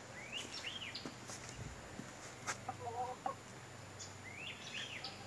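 A hen clucking softly a few times around the middle, with faint high bird calls near the start and again near the end.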